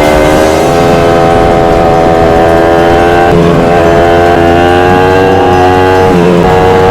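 Motorcycle engine under way, its pitch climbing steadily and then dropping sharply twice, about three seconds in and again near the end, as it shifts up through the gears.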